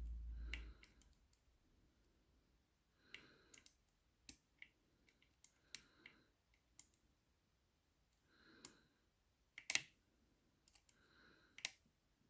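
Faint, irregular metallic clicks of a lever-lock pick lifting the levers of a five-lever mortise lock under light tension, a dozen or so scattered ticks with a few soft rustles between them.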